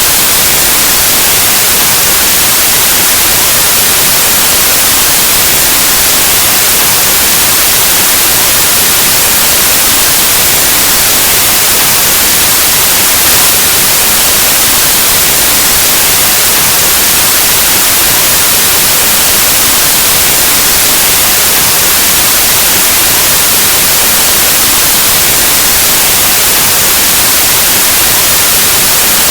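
Continuous, loud white noise: an even, unchanging hiss across the whole range, like the static of an analog TV or radio between stations.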